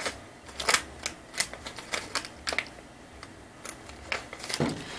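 Hands handling cosmetic product packaging: a series of sharp, irregularly spaced clicks and taps with light crinkling.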